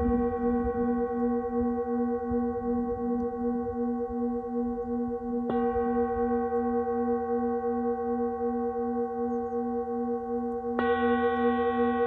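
Singing bowl set on a person's back, struck with a mallet and ringing on with a slow wobbling pulse in its low tone. It is struck again about five and a half seconds in and once more near the end.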